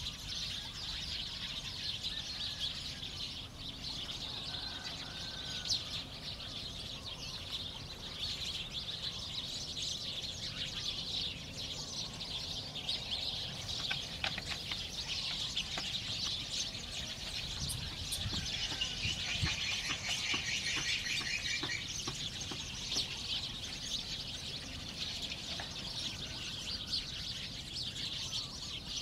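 Many small birds chirping and twittering without pause, with a rapid pulsing trill for a few seconds about two-thirds of the way through.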